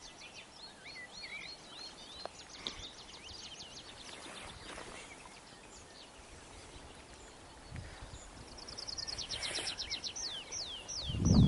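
Small songbirds singing: high, rapid trills of repeated notes in the first few seconds, and later a fast run of notes that ends in a few slower downward-sliding notes. A low rumble builds near the end.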